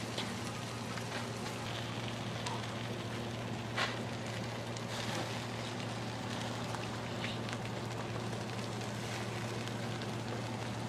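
Leg of goat sizzling on a charcoal grill, a steady crackle with scattered sharp pops, the loudest about four seconds in. A steady low hum runs underneath.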